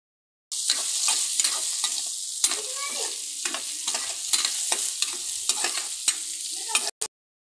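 Sliced onions sizzling in hot oil in a pan, with peanuts and green chillies, while a spatula stirs and scrapes them around: a steady frying hiss with irregular clicks and scrapes of the utensil against the pan. It starts about half a second in and cuts off abruptly near the end.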